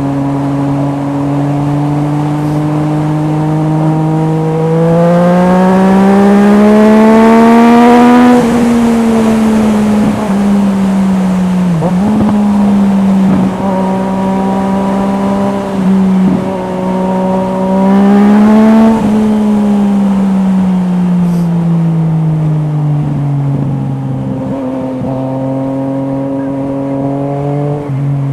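Yamaha MT-09's 847 cc inline-three engine through an Akrapovič exhaust, heard onboard while riding. It runs steadily, then the revs climb smoothly for about four seconds and hold. They rise again briefly past the middle, then fall back to a steady lower note near the end.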